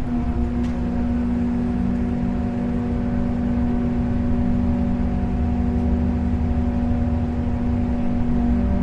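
Boat engine running steadily at low speed while docking: a continuous deep drone with a hum that holds one pitch throughout.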